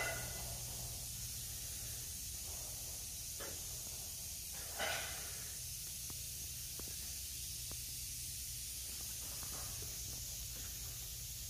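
Steady hiss with a low hum underneath, broken by a few faint clicks and one short breathy whoosh about five seconds in.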